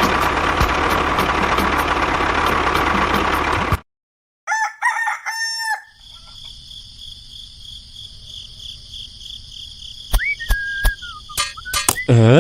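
A small motor runs loudly and cuts off suddenly, then after a short pause a rooster crows. Quieter steady high tones follow, with a rising whistle-like glide near the end.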